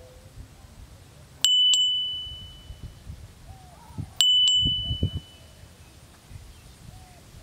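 A high, clear metallic chime struck twice in quick succession, then again about three seconds later, each ring fading over about a second.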